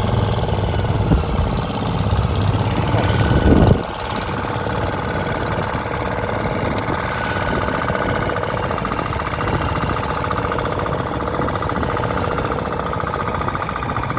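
An engine running steadily with a fast, even pulse. A heavy low rumble sits under it for the first few seconds and drops away suddenly about four seconds in.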